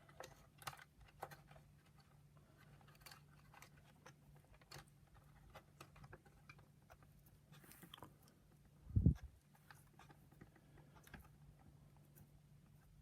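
Faint clicks and rustles of hands handling wires and small plastic parts, with a low steady hum underneath and a single low thump about nine seconds in.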